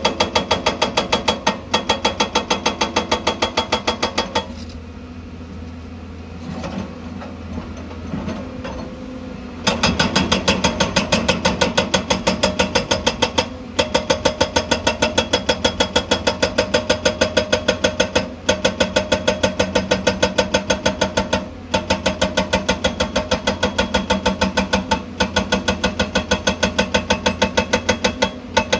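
Excavator's hydraulic rock breaker hammering rapidly at about five blows a second, each blow ringing, over the excavator's running engine. About four seconds in the hammering stops for some five seconds and only the engine runs, then it resumes.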